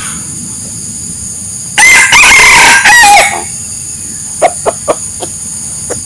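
A rooster crowing once, a loud cock-a-doodle-doo starting about two seconds in and lasting about a second and a half, followed by four short clucks.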